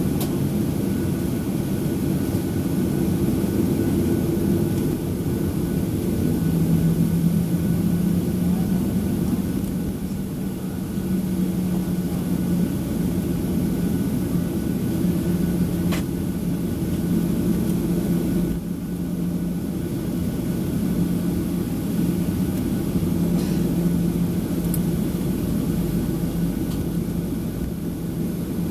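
Boeing 737-800's CFM56 jet engines heard from inside the passenger cabin: a steady, low droning rumble with a constant hum, and one faint click about sixteen seconds in.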